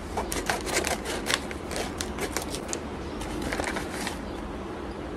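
Brown paper and plastic parcel packaging crinkling as it is handled and pulled open: a quick run of crackles that stops about four seconds in.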